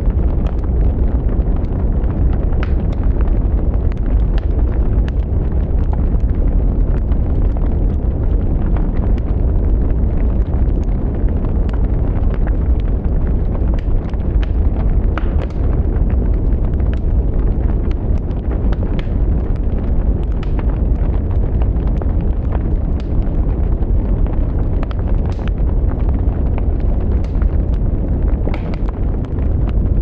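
Wood fire burning in a firebox, crackling and popping with frequent sharp snaps over a steady low rumble.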